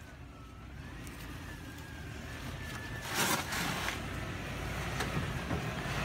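Toyota LandCruiser 100 Series engine working at low speed as the 4WD crawls up a rutted, rocky track, growing louder as it nears. A brief harsh crunching noise comes about three seconds in.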